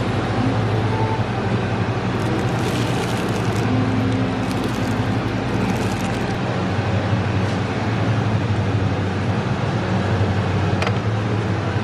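Grocery store background: a steady low hum of refrigerated display cases and ventilation. Plastic produce bags rustle and crinkle as they are handled, between about two and five seconds in.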